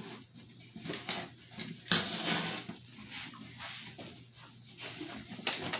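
German shepherd mouthing and pawing a cardboard box: irregular scratching, crinkling and scraping of cardboard, with one louder, longer rasping scrape about two seconds in.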